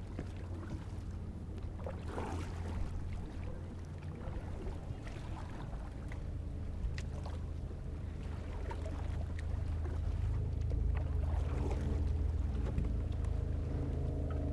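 Steady low rumble on the water with scattered light knocks and clicks; in the second half a motor's steady hum builds and grows louder, like a motorboat approaching.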